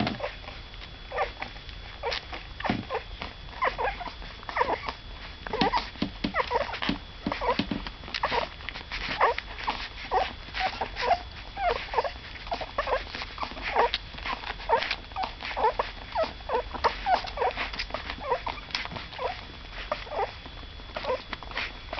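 Newborn puppies squeaking and whimpering while they nurse from their mother, many short high squeaks a second overlapping without pause.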